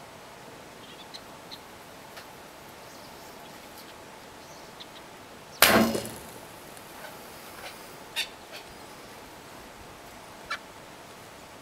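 A single shot from a Hoyt GameMaster recurve bow about halfway through: the string's sharp thump on release, fading over about half a second. A few faint short chirps and clicks follow.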